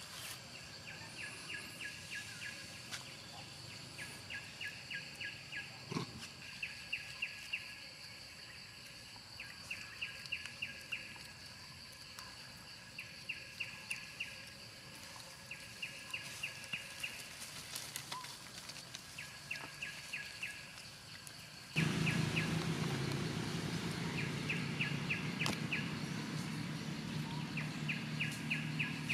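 Outdoor forest ambience: a steady high insect drone, with short bursts of rapid chirping repeating every two to three seconds. About 22 seconds in, a low rumble of background noise starts abruptly and carries on under the chirping.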